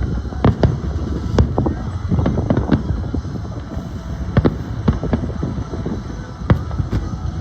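Fireworks going off: a string of sharp, irregularly spaced bangs over a steady low rumble.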